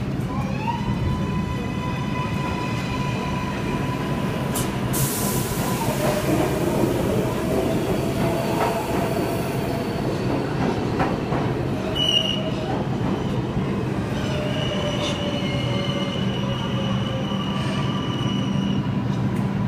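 R142A subway train pulling out of the station: its motors whine up in pitch as it starts off, then hold a steady whine over the rumble of the cars. A hiss sets in about five seconds in, and the wheels squeal on the rails from about two thirds of the way through.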